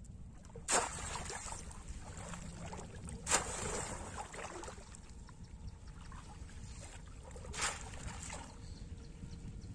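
A bamboo polo fish trap slammed down into shallow muddy water: three sharp splashes, about a second in, a little past three seconds and near the end, with smaller splashing between them over a steady low rumble.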